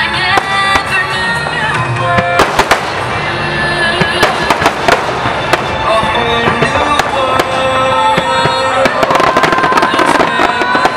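Aerial firework shells bursting in rapid succession over music played for a fireworks-to-music show. The bursts come thickest near the end as a barrage builds.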